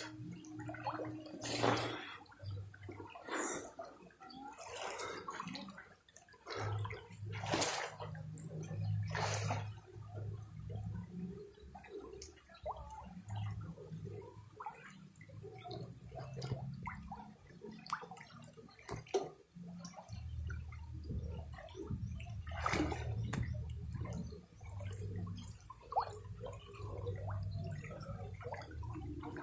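Pool water sloshing and gurgling against a camera held at the waterline, muffled as the microphone dips in and out of the water, with a few sharper splashes.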